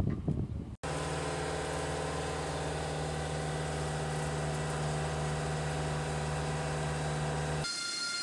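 An engine idling steadily with a low, even hum, starting abruptly about a second in. Near the end it gives way to a different steady sound with a high-pitched whine.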